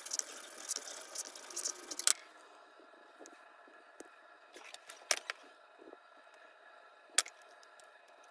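Steel wool scrubbing a metal part of an Embury Midget cold-blast lantern in quick scratchy strokes for about two seconds. Then a few light clicks and taps as the part is handled, with one sharper click near the end.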